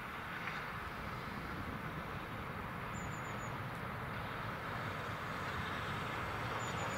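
Bulleid West Country class Pacific steam locomotive hauling a train of coaches: the rumble of the working engine and train, growing steadily louder as it approaches. A small bird chirps a few times about halfway through.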